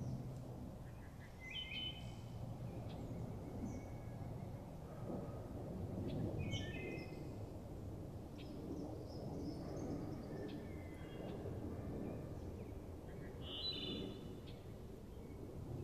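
Wood thrush singing: three flute-like phrases a few seconds apart, each a cluster of clear notes. Other birds chirp faintly in between, over a steady low background noise.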